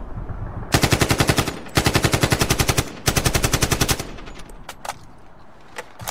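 Automatic rifle fire in three rapid bursts of about a second each, followed by a few single sharp clicks.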